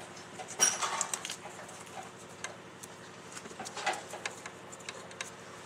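Small clicks, ticks and rattles of wires and terminals being handled inside a floor sander's metal switch box, with a sharp click about half a second in and another short cluster of clicks near the end.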